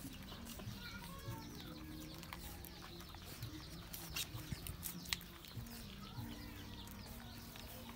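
Puppies suckling at their mother dog: faint wet smacking and sucking clicks, the sharpest about four and five seconds in, with a few short high squeaks about a second in.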